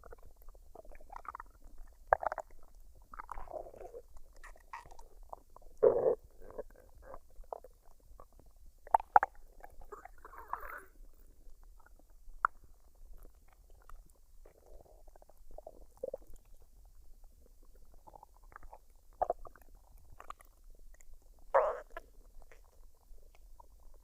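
A woman's stomach gurgling while it digests a full meal: irregular short gurgles and squelches at uneven gaps. The loudest come about a quarter of the way in, a few seconds later, and a few seconds before the end.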